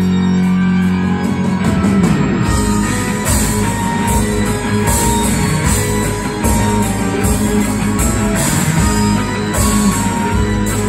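Live rock band playing: a held chord with light rhythmic ticking, then about two seconds in the full band comes in with drums on a steady beat and electric guitars.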